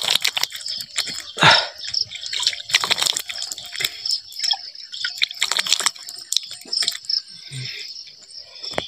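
Water splashed onto a face by cupped hands: a run of irregular splashes and drips, thinning out toward the end.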